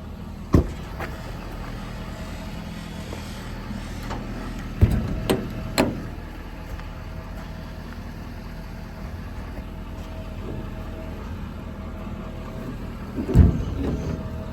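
Ford 6.7 Power Stroke V8 diesel idling steadily, with several sharp knocks: one about half a second in, three close together around five seconds in, and a loud one near the end.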